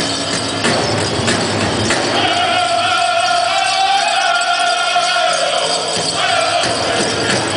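Powwow drum group singing a men's fancy dance song in high, held voices over a steady drum beat, with the jingling of the dancers' ankle bells.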